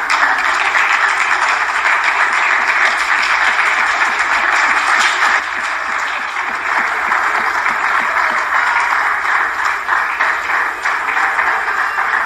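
A crowd applauding, dense and steady, in celebration of the announced winning vote.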